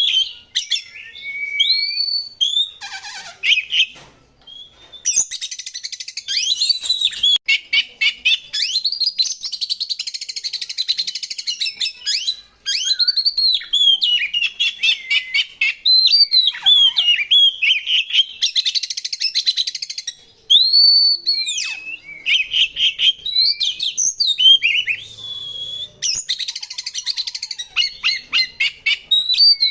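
Oriental magpie-robin (kacer) singing loudly in rapid-fire 'nembak' style. Varied gliding whistles alternate with fast, harsh, buzzing runs of notes, with only brief pauses every few seconds.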